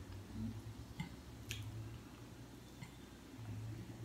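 Faint mouth sounds of a person chewing a mouthful of spaghetti and meatballs, with a few soft clicks, over a low steady hum.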